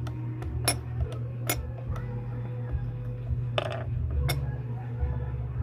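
Sharp metallic clicks and clinks of sewing machine parts being handled and taken apart for cleaning, coming irregularly about six times, over a steady low hum.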